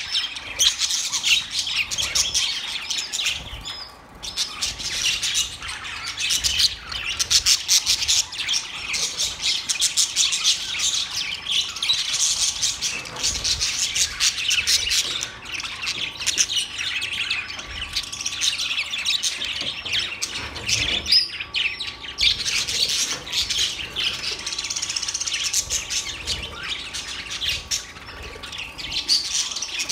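Birds chirping rapidly in a dense, continuous chatter of many overlapping high chirps, with a brief lull a few seconds in.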